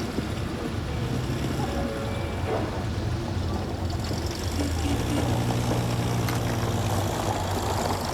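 A motor vehicle engine running with a steady low hum amid street noise, growing louder about halfway through.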